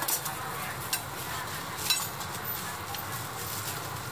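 Serving utensils clinking against the glass and metal topping containers of a dessert stall as portions are scooped: three sharp clinks about a second apart, the loudest near the middle, over steady background noise.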